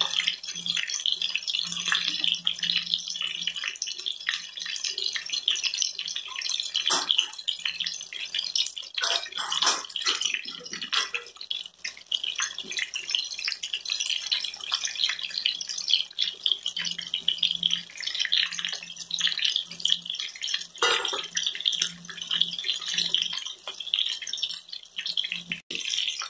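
Chicken drumsticks deep-frying in hot oil in a kadai, sizzling steadily with many small crackling pops.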